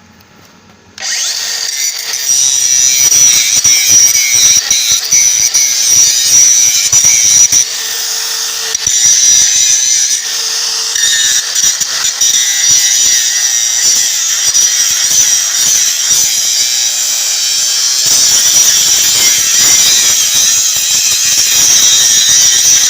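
DeWalt DCG414 cordless angle grinder with a 125 mm disc, switched on about a second in and then grinding a weld seam steadily under heavy pressure. Its speed holds and does not bog down under the load.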